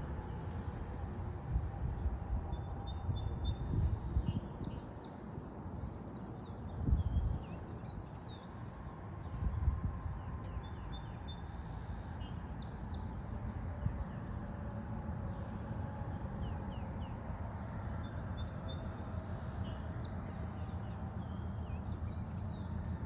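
Outdoor ambience while waiting at a railroad crossing: wind rumbling on the microphone, gusting twice about seven and nine seconds in, with faint bird chirps throughout.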